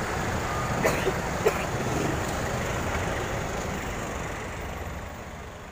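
Road traffic with a city bus and other vehicles passing close by, a steady engine rumble and tyre noise. Two short clicks come about a second in, and the sound dies away near the end.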